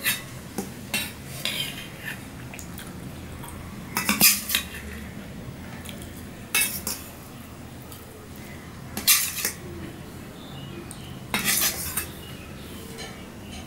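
Stainless steel spoon scraping and clinking against steel dishes as rice is scooped from a steel bowl onto a steel plate. The clinks come in short clusters every two to three seconds.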